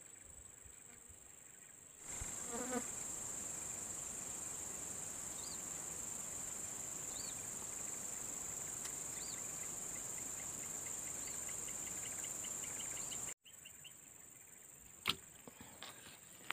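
Swamp insects buzzing in a steady high-pitched chorus, with a few faint chirps over it. It starts suddenly about two seconds in and cuts off suddenly near the end, followed by a sharp click.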